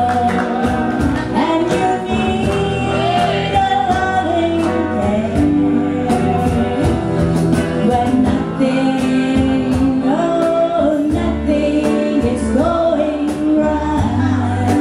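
Live band playing a song: a woman sings the lead melody with backing singers, over a stage piano, guitar and cajón beating a steady rhythm.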